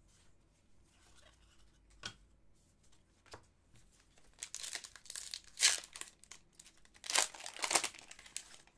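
Trading card pack wrapper crinkling and tearing in two bursts, about four and a half and seven seconds in, after a couple of soft knocks.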